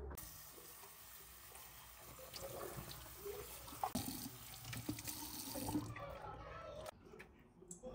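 Kitchen tap running water into a stainless steel colander held over the sink, with a few light knocks. The water is turned off and stops suddenly about seven seconds in.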